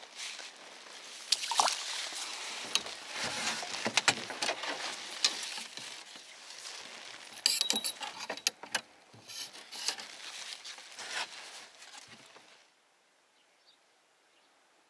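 Rustling with irregular clicks and knocks from handling fishing gear in a small boat, stopping abruptly near the end.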